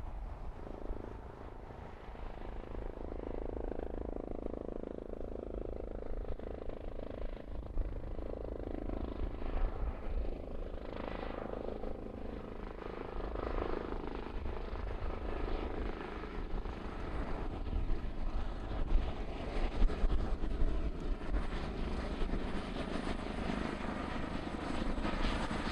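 Aircraft engine noise at an airfield, a shifting rushing sound whose tone sweeps slowly up and down as the aircraft moves, over a steady low rumble.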